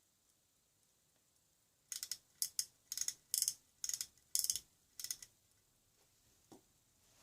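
Ingersoll pocket watch's crown being wound by hand: its ratchet clicks come in about eight quick bursts, one per short turn, roughly two a second, starting about two seconds in.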